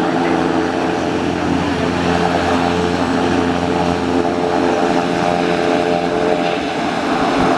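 Pilatus PC-12's single turboprop engine and propeller idling with a steady, even hum while the aircraft stands on the ramp.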